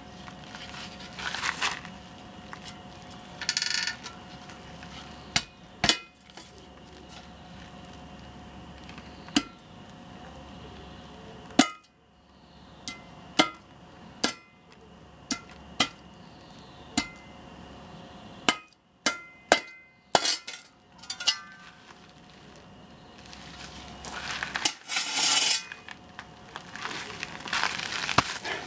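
Steel spade blade striking down on a small dead LiPo battery lying on a concrete paver: about fifteen sharp clanks, coming faster together about two-thirds of the way in. Footsteps crunch on gravel near the start and near the end.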